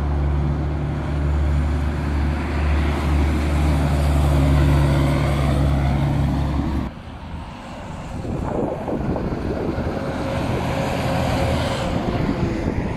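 Heavy diesel semi-truck passing in road traffic, its engine giving a deep steady drone that cuts off abruptly about seven seconds in. After that come lighter traffic noise and a city transit bus passing close.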